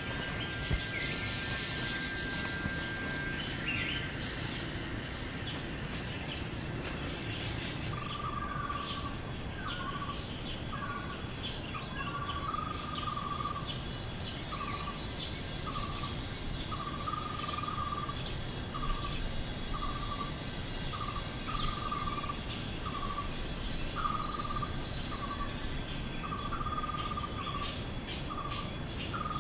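Insects trilling steadily in one continuous high tone, with a bird repeating a short call about once a second from roughly a quarter of the way in.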